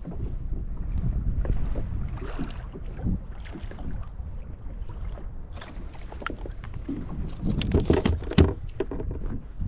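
Wind buffeting the microphone over water lapping at a pedal kayak's hull, a steady low rumble. A little past the middle comes a run of sharp clicks and knocks, the loudest part.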